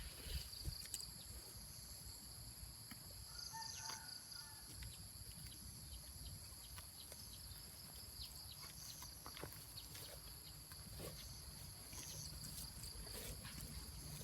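Cattle grazing: soft, scattered rips and clicks of grass being cropped, over a steady high whine of insects with small repeated chirps and a low rumble of wind.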